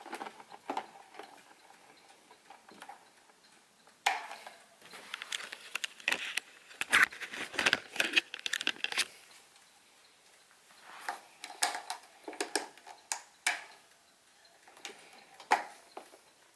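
Irregular clicks, knocks and light rattles of a plastic table fan being handled, in two busy clusters with a quieter gap between them.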